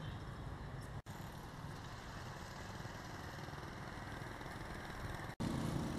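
Street traffic noise: motor vehicles and motorbikes running. The sound drops out for an instant about a second in and again near the end.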